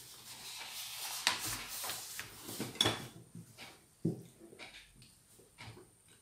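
Crinkling and light knocks as an aluminium foil tray covered in plastic wrap is handled and set down, followed by a few scattered sharp clicks.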